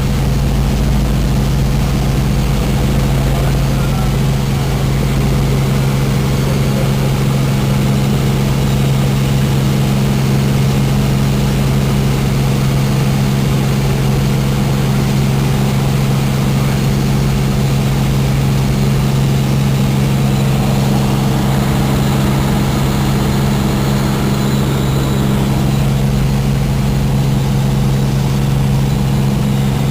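Helicopter engine and rotor running steadily in flight, as a constant low drone with a strong steady hum.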